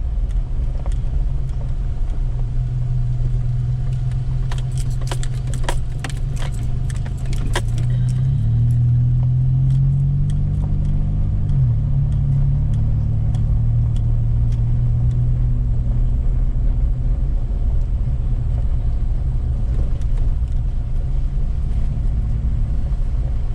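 Pickup truck driving on a gravel road: steady engine and tyre rumble, with a run of sharp rattling clicks about four to eight seconds in and the engine note shifting around ten seconds in.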